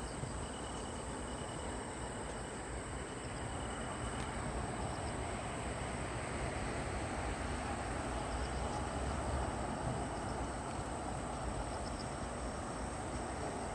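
Crickets calling at night: a steady high trill, with a pulsed chirping that stops about four seconds in, over a steady low rumble that grows a little louder midway.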